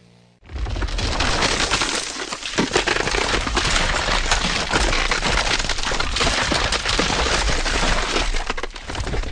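Ice cracking and breaking: a dense, continuous run of sharp cracks and crunches that starts suddenly about half a second in.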